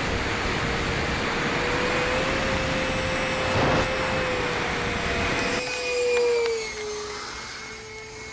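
Electric ducted fans of a Dynam Meteor RC jet whining steadily on a low pass, swelling and then dropping in pitch as the model goes by, about six and a half seconds in. A rushing noise under the whine cuts off abruptly a little before the pitch drop.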